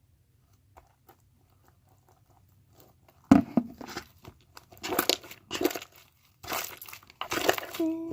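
Stiff slime being squeezed and stretched by hand, crackling and crunching in bursts that start with a sharp knock about three seconds in, with a few short squeaks near the end.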